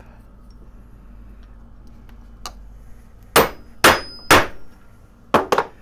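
Hammer blows on a steel dapping punch, doming a copper disc in a steel dapping block: three hard strikes about half a second apart, then two lighter taps near the end.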